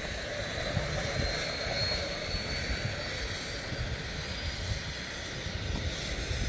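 Aircraft engine droning steadily, with a faint high whine that slowly rises in pitch.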